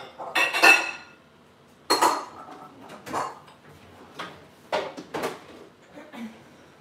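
Bowls and dishes clinking and clattering as they are handled and set down, a string of separate sharp knocks with short ringing, the loudest in the first second and about two seconds in, softer ones after.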